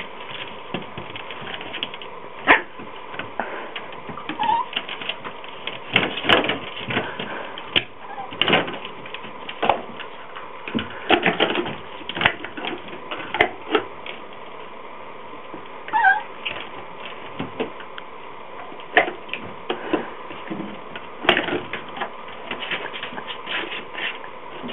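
Yorkshire terrier puppy giving a couple of short, high whimpers, amid many short knocks and scrapes throughout.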